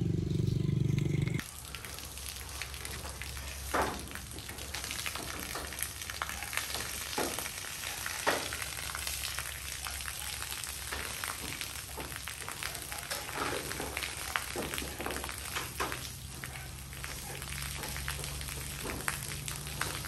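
Workers scraping and brushing a corrugated sheet-metal roof: a steady crackling hiss with irregular sharp scrapes. A low rumble cuts off about a second and a half in.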